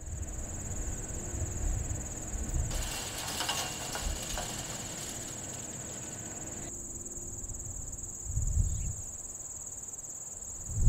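A chorus of crickets chirping steadily in one continuous high-pitched trill, over an uneven low rumble with a brief hiss in the middle.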